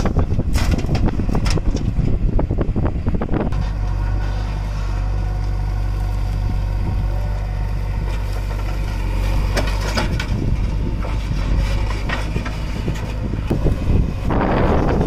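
JCB 3DX backhoe loader's diesel engine running as it digs and loads soil into a tipper truck. For the first few seconds and again near the end there is a rough, crackling rattle of dirt falling from the bucket. In between, the engine runs as a steady hum.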